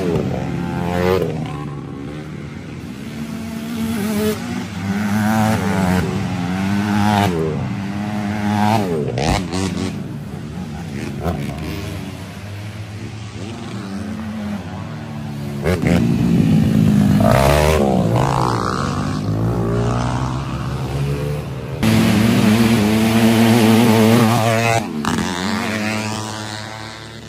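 Youth racing quads passing one after another, their small engines revving up and down so the pitch keeps rising and falling. The loudest passes come right at the start, about two-thirds of the way through, and again near the end.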